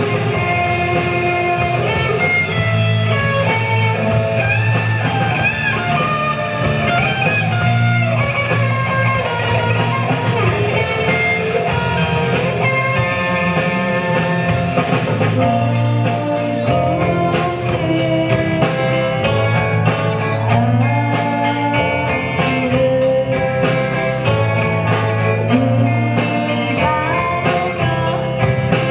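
A rock band playing live, with electric guitar, bass, drum kit and vocals. From about halfway the drums settle into a steady, even cymbal beat.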